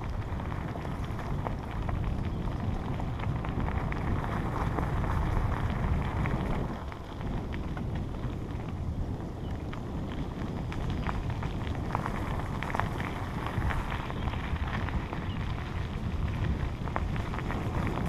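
Bicycle tyres rolling over a gravel trail, a steady rumble of wind on the action camera's microphone with many small clicks and rattles of stones, easing briefly about seven seconds in.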